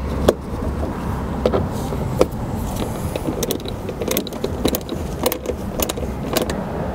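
A hand tool tightening a wheel-arch liner bolt: a run of irregular sharp metal clicks over a steady low rumble.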